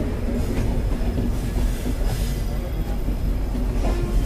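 Two passenger trains passing each other on adjacent tracks, heard from an open coach doorway: a steady heavy rumble of steel wheels on rail with wind noise and scattered clicks and knocks from the wheels and rail joints.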